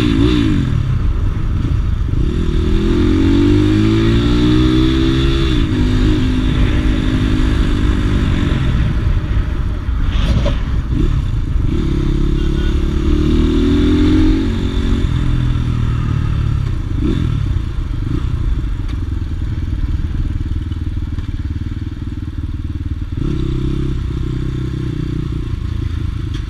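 Crossfire RM 250 motorcycle engine running under way. Its pitch climbs and drops back twice as it accelerates and shifts, then it runs at a steadier pitch.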